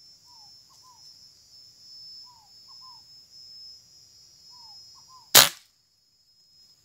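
A single air-rifle shot about five and a half seconds in: one sharp crack, the loudest sound. Before it a bird calls three times, each call a falling note followed by two short notes, over a steady high buzz of insects.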